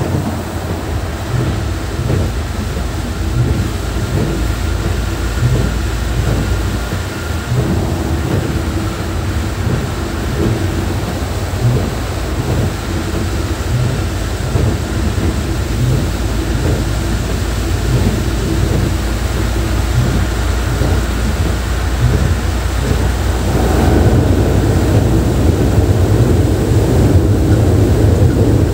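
Volvo coach running at speed in heavy rain: a steady low rumble of engine and road with rain noise and faint whining tones, growing louder about 23 seconds in.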